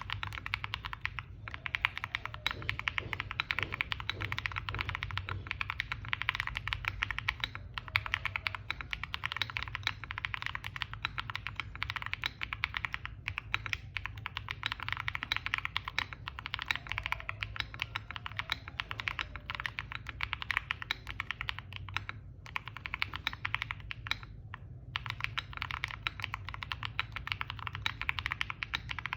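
Mechanical keyboard typed on fast and continuously: a Sela 70 with KTT Waverider switches, DMK keycaps and a polycarbonate plate, giving a dense run of key clacks with a few brief pauses.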